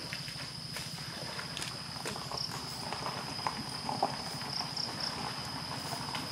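Water splashing and sloshing as elephants are bathed in a pond, with sharp irregular slaps and knocks. A steady high-pitched insect drone runs underneath.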